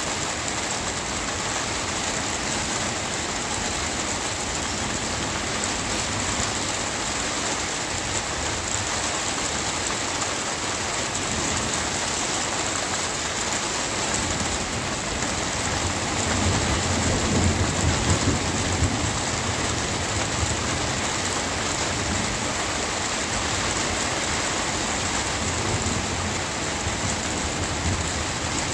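Steady rain, with a low rumble of thunder swelling a little past the middle and dying away.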